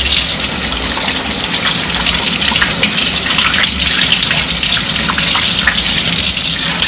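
Kitchen sink faucet running steadily while hands are washed under it, the water splashing over the hands.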